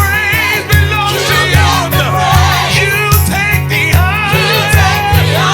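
Live gospel worship music: a band with drums and bass playing under singing with wide vibrato.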